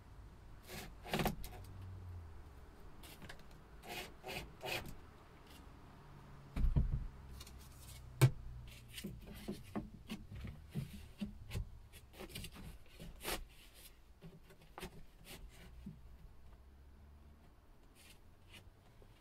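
Wooden cladding boards being handled and fitted against a ceiling frame overhead: scattered knocks, clicks and wood rubbing on wood, with a heavier thump about seven seconds in and a sharp knock just after.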